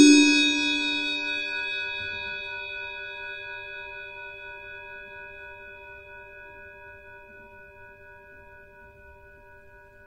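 Electric 'Vatikan' bell horn ringing out after one stroke of its solenoid plunger on the gong: several clear bell tones together that fade slowly over about ten seconds.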